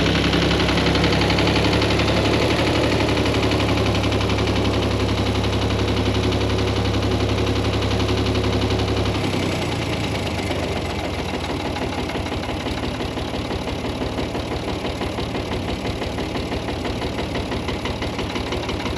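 Vehicle engine running with a deep, steady drone, which drops away suddenly about nine seconds in, leaving a quieter, evenly pulsing engine sound.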